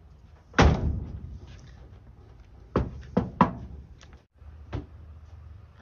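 The door of a 1965 Mercury Comet Cyclone shut with a heavy thump about half a second in, followed around three seconds in by three sharper knocks and a couple of fainter ones near the end.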